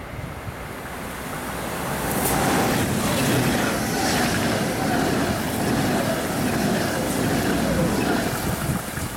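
ICE high-speed electric train running through close by at speed: a rush of air and wheel noise that grows over the first two seconds, then stays loud as the cars go past.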